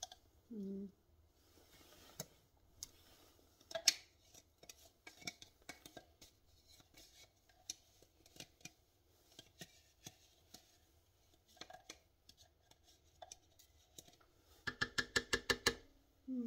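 Spatula scraping thick peanut sauce out of a jug: scattered light scrapes and clicks, then a quick run of about ten taps near the end.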